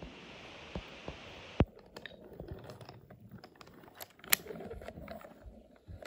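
Wooden toy train pushed by hand along wooden track, giving small irregular clicks and knocks, with two sharp clacks about one and a half seconds in and a little past four seconds. A soft hiss lasts through the first second and a half.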